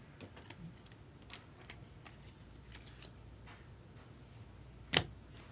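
Trading cards being handled: soft rustling with a few light clicks, and a sharper click near the end.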